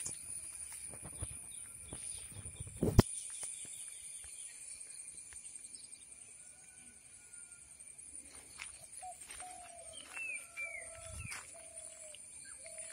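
Outdoor farm ambience: birds calling with short repeated notes, more of them in the second half, over a steady high-pitched hum. About three seconds in a sharp knock, the loudest sound, and low rumbles come from the phone being handled as it swings about.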